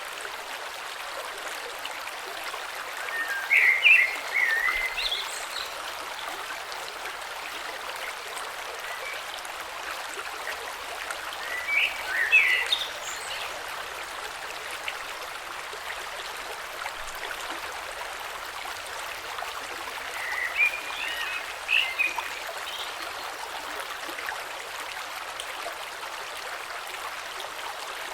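Small mountain creek flowing steadily over stones, a gentle even rush of water. A bird calls over it in three short chirping phrases, a few seconds in, about halfway, and near three-quarters through.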